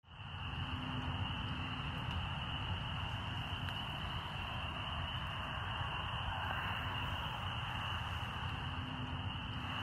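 Steady outdoor ambience: a continuous high-pitched chorus of calling frogs over a low rumble, fading in at the start.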